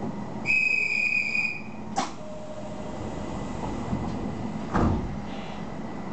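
Nishitetsu commuter train standing at a platform as it prepares to leave: a steady electronic beep lasting about a second, a sharp click about two seconds in, and a heavy thump near the end as the sliding doors close.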